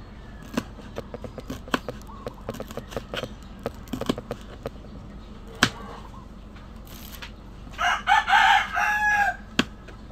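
Knife blade tapping on a wooden cutting board while slicing small red chili peppers, irregular light taps throughout. About eight seconds in, a rooster crows loudly for over a second.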